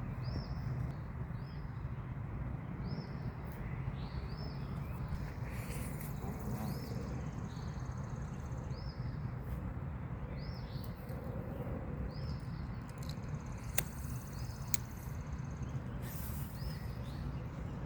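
Outdoor pond ambience: a steady low background rumble, with a small bird's short high chirp repeating about once a second. Two sharp clicks come close together near the end.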